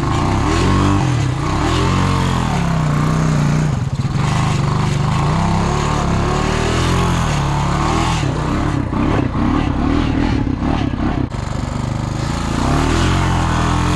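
Honda Rancher 350 ATV's single-cylinder four-stroke engine revving up and down under load as it pushes through a mud hole, the pitch rising and falling. A run of sharp knocks and clatter comes around the middle.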